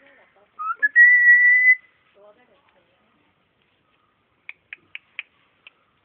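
A whistle: a short rising note that then holds one steady pitch for about a second. Near the end come five or six quick, sharp clicks.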